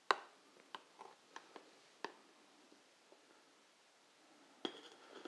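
A metal spoon clicking and scraping faintly against a glass dish as it digs out a portion of tiramisu. Near the end it clinks, with a brief ring, against a ceramic plate as the scoop is set down.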